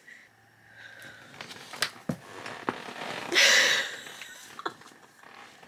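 A few soft clicks and rustles as a hardcover book is handled and shut, then a loud, wheezy, breathy exhale about three and a half seconds in.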